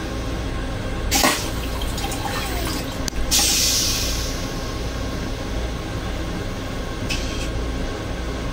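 A railcar toilet finishing its flush: a sharp whoosh about a second in, then a hiss of rinse water into the stainless steel bowl at about three seconds, fading over a second, and a brief hiss near the end. The train's low rumble runs underneath.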